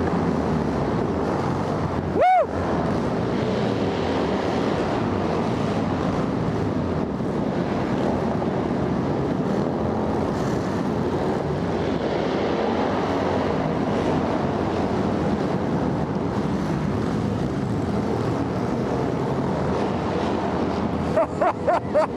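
A pack of Harley-Davidson V-twin motorcycles running together through a road tunnel: a loud, dense, steady rumble with wind on the rider's microphone. A shout of "woo" about two seconds in, and a quick string of short pitched calls near the end.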